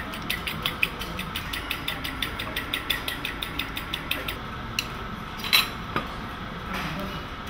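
Fork beating eggs in a ceramic bowl: a fast, even clinking of metal against the bowl, about six strokes a second, that stops about four seconds in. A single louder clink follows a little later.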